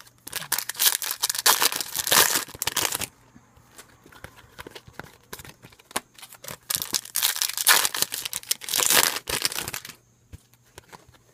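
Foil wrappers of Topps Chrome trading card packs crinkling and tearing open, in two long stretches. Between them come small clicks and taps as the cards are handled.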